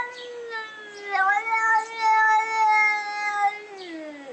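Domestic cat yowling in one long, drawn-out complaining call. The pitch dips briefly about a second in, then slides down near the end.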